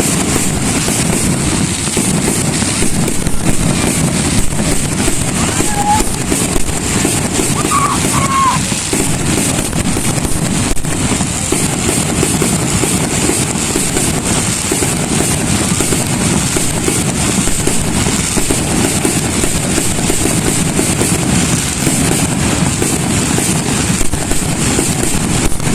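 Fireworks display: a continuous barrage of many overlapping bangs and crackles, with no pauses.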